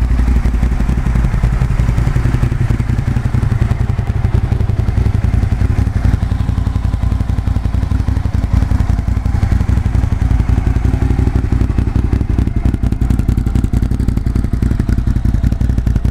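2008 Hyosung Comet GT650's V-twin engine idling steadily, heard through an aftermarket slip-on silencer.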